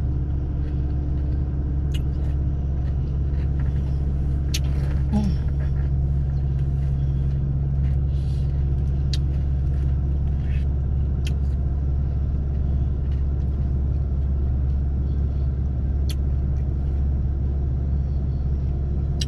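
Car engine idling, a steady low hum heard from inside the cabin, with a few brief sharp clicks.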